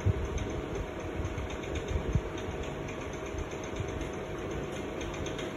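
Steady hum of an electric fan running, with a constant mid-pitched motor tone, and a few soft low bumps near the start and about two seconds in.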